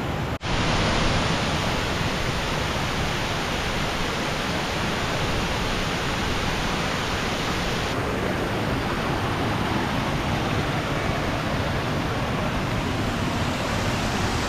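Waterfall cascades rushing: a steady, dense hiss of falling water. It drops out for an instant just after the start and turns slightly duller about halfway through.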